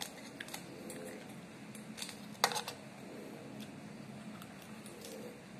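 Metal spoon and fork clinking and scraping against a ceramic bowl while eating: a few light clicks, with one sharper, ringing clink about two and a half seconds in.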